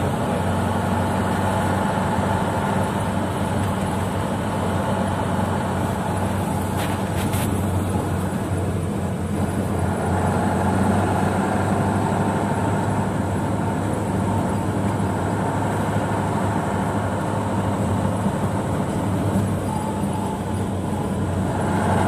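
Steady engine drone and road noise heard from inside the cab of a loaded truck driving at speed on a snowy road. A couple of brief clicks sound about seven seconds in.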